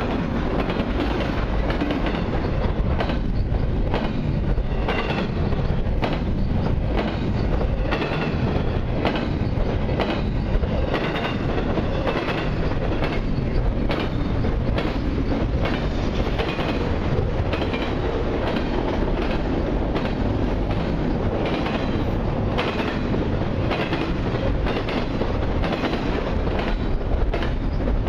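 Double-stack intermodal freight train rolling past close by, its steel wheels running over the rails in a loud, steady rumble broken by rapid, irregular clacking.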